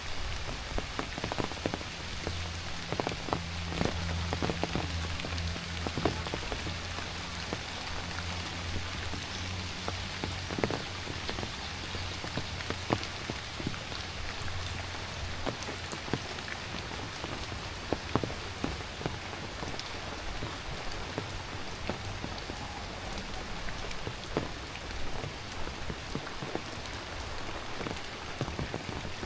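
Heavy rain falling steadily, with many close individual drops striking sharply. A low steady hum is heard during the first several seconds.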